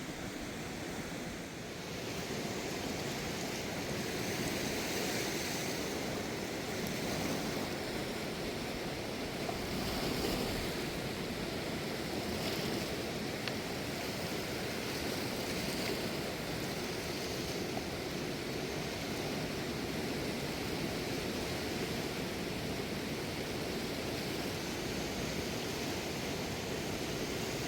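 Steady rushing of fast-flowing river water, an even roar with no breaks.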